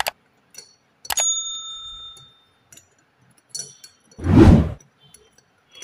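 Metal clinks as rocker arm parts are fitted into a Hero Splendor Plus cylinder head: a sharp click, then a clink about a second in that rings on briefly like a small bell, and a few light ticks. Near the end comes a short, loud whoosh.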